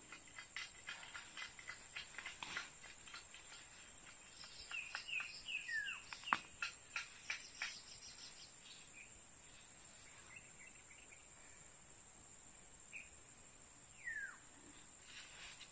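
A steady high-pitched insect drone with bird calls over it: a few short chirps around the middle and a single falling whistle near the end. A run of sharp clicks and crackles fills the first half, with the loudest snap just past the middle.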